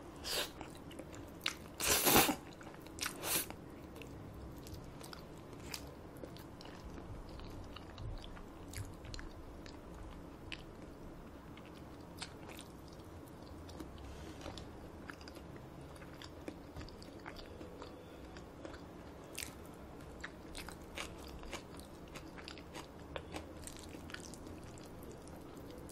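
Close-miked eating of cold spicy bibim-myeon noodles: three loud slurps in the first few seconds, the second the longest, then soft chewing with small wet mouth clicks.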